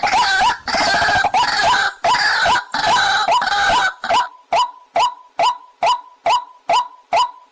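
A waterhen calling: about four seconds of rapid, overlapping pitched notes, then a single short note repeated evenly a little over twice a second.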